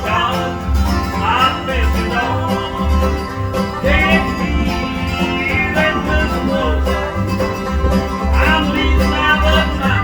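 Bluegrass band playing an instrumental break: banjo and guitar, with sliding fiddle lines over a bass walking a steady, alternating beat.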